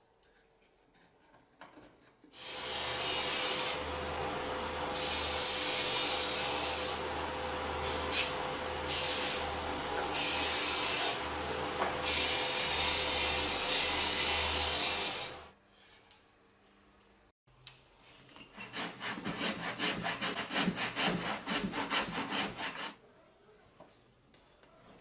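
Benchtop belt and disc sander running for about thirteen seconds while a piece of wood is pressed against its spinning sanding disc; it gives a steady hum with a held tone, and the level shifts as the pressure changes. After a pause, a handsaw cuts a thin strip of wood in a miter box with quick back-and-forth strokes for about five seconds.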